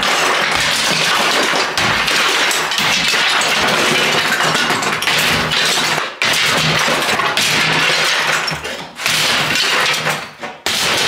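Old plaster and wooden lath being broken out of a wall by hand: near-continuous cracking and clatter of breaking plaster and lath with debris falling, broken by short pauses about six and nine seconds in.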